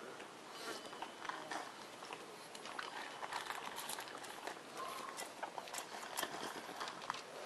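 A pug eating dry kibble from a plastic slow-feeder dish. Irregular crunching and small clicks, with the dish knocking and scraping on concrete as the dog nudges it along.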